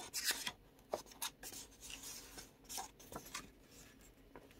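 Pages of a hardcover-bound comic volume being turned by hand: a series of short, quiet paper rustles and flicks.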